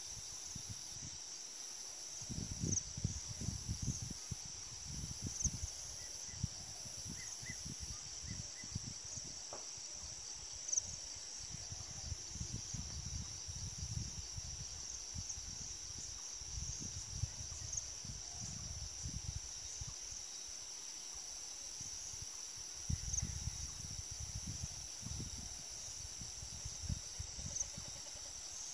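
Steady high-pitched chorus of insects trilling, with irregular low rumbles coming and going underneath.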